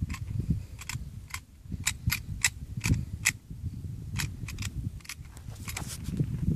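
A run of irregular sharp clicks, a few a second, from a small gun being handled and readied, over a low rumble of wind on the microphone.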